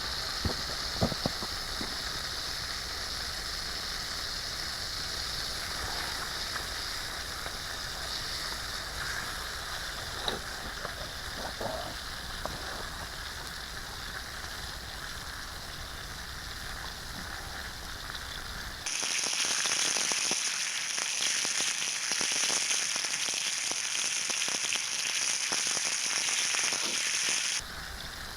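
Strip steak sizzling on a grill grate over a campfire, a steady hiss with a few sharp pops from the fire early on. About two-thirds of the way through the sizzle abruptly becomes louder and closer for several seconds, then drops back just as suddenly.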